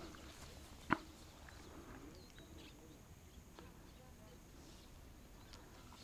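Quiet outdoor background with one sharp click about a second in, followed by a few faint ticks.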